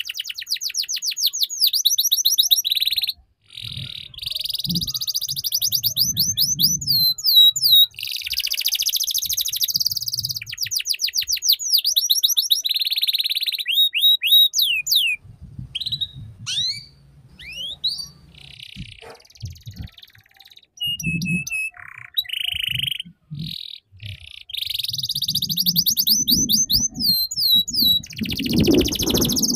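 Orange canary singing phrase after phrase of fast rolling trills and chirps, the 'ngeriwik' song used as a master for young canaries to learn from. There are short pauses between phrases and scattered single notes near the middle. Low rumbles sound underneath at times.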